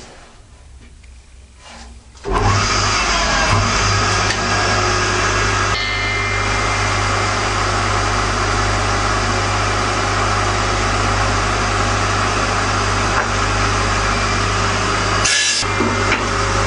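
Table saw switching on about two seconds in and running steadily with a constant motor hum, ripping an ash post down to thickness, with a short break near the end.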